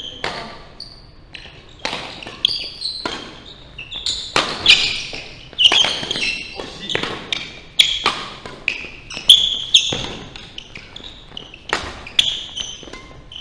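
Badminton doubles rally: sharp racket strikes on the shuttlecock come every second or so, with court shoes squeaking and feet thudding on the wooden floor between shots, echoing in a large hall.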